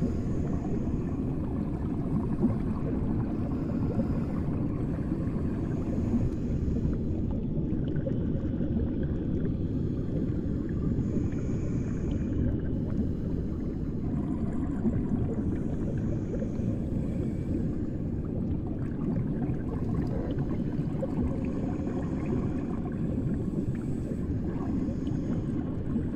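Muffled underwater ambience heard by a submerged microphone: a steady low rumble, with faint higher tones drifting in and out.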